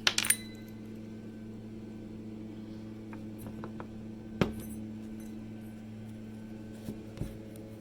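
Small metal parts of a Ford ignition lock cylinder clicking and clinking as it is worked apart by hand with picks, with sharp clicks at the start and a louder one about halfway through. A steady low hum runs underneath.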